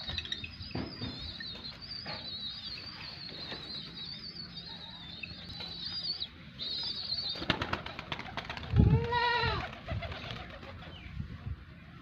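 Domestic pigeons flapping their wings in a short clatter a little past halfway, with a small bird chirping continuously in a high warble through the first half. Near three-quarters through comes the loudest sound, a single loud animal call that rises and falls in pitch and lasts under a second.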